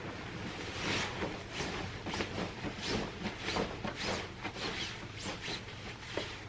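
Bedding fabric rustling in a run of irregular swishes as a comforter is worked into a duvet cover and the cover is lifted and shaken.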